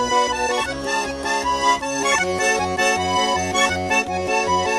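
Instrumental break in a Russian folk-style song: accordion playing held chords over an evenly alternating bass line, with no singing.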